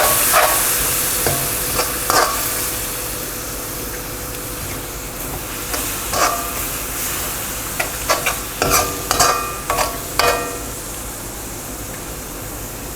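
Spice masala with a splash of water sizzling in a hot pan as it is stirred and sautéed, the spatula scraping and knocking against the pan now and then, with a quick run of strokes between about eight and ten seconds in.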